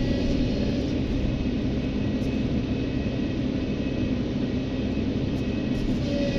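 Heavy diesel machinery running steadily: a low, even engine rumble with a faint high whine over it.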